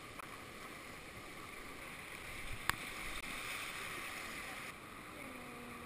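Whitewater rapids rushing steadily around a kayak, heard from a camera at water level. A single sharp click about halfway through.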